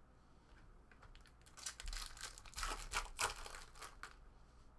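Foil trading-card pack wrapper crinkling and tearing as it is opened, a run of rustling from about a second and a half in until about four seconds in.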